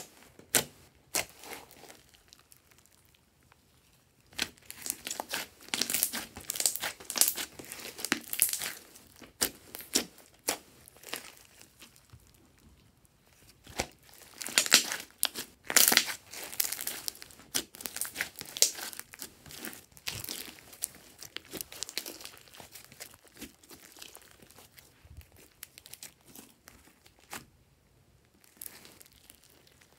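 Hands squishing, poking and kneading a large mound of glossy slime: irregular bursts of sticky crackling and popping clicks as the slime is pressed and air pockets squeeze out. The crackling comes in busy stretches and grows sparser and quieter near the end.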